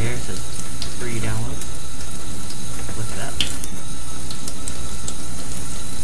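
Steady, loud rush of running water, like a tap left running, with faint indistinct voice-like sounds rising out of it now and then.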